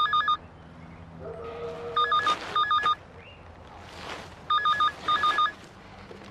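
Push-button telephone's electronic ringer warbling in a double-ring pattern: two short trills, a pause, then two more, repeating.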